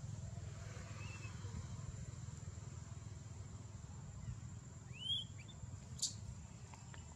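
A baby macaque gives a faint high chirp, then about five seconds in a loud high squeak that rises and falls, followed quickly by a shorter one. A steady low rumble runs underneath, and a sharp click comes about six seconds in.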